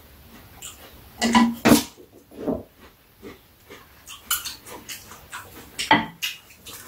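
Close eating and food-handling noises at a table: a few short sips, smacks and rustles as rice cakes are pulled apart and eaten. The loudest come about a second and a half in and again near the end.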